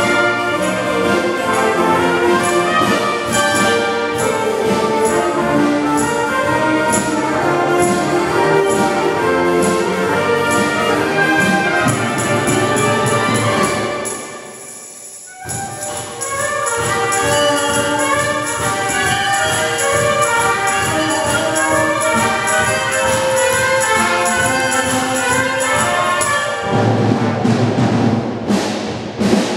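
Concert wind band playing a blues number, trumpets and clarinets to the fore. About halfway through, the music dies away for about a second and a half, then the whole band comes back in together.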